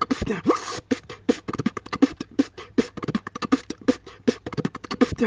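A beatboxer performing a fast vocal-percussion pattern: a dense run of sharp clicking hi-hat and snare sounds, several a second, mixed with short pitched bass blips.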